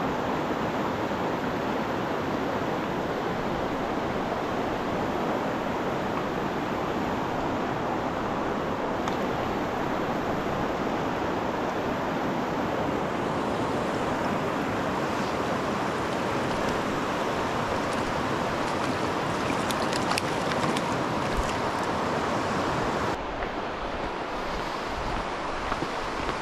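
Fast river water rushing steadily over rocks in a riffle. The rush steps down a little a few seconds before the end.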